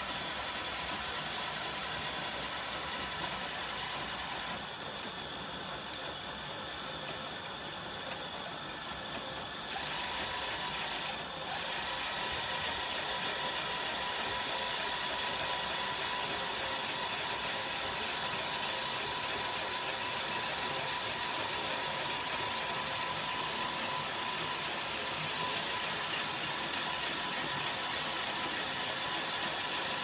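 Small engine of a quarter-scale working model Nuffield 10/60 tractor running steadily, driving the working mechanism of a quarter-scale Massey 701 baler. About ten seconds in the sound gets louder and a steady whine joins in.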